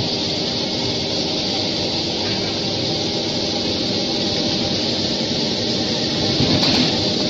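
OBTH800 book thread-sewing machine running steadily, a dense, rapid mechanical clatter as sewn book blocks feed out on its delivery conveyor.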